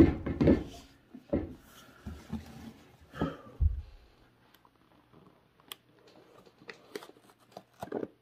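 Cardboard display box being handled and opened: a few knocks and scrapes as the sleeve and lid come off, with a low thud about three and a half seconds in, then lighter scattered clicks and rustles.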